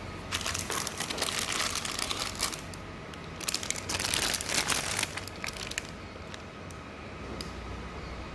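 Packaging crinkling as it is handled, in two stretches of dense crackling, followed by a few light clicks.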